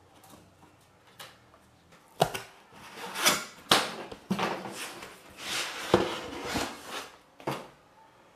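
Cardboard packing scraped and slid over a 3D printer's top lid, with several sharp knocks and clatters as the lid is handled, starting about two seconds in and stopping shortly before the end.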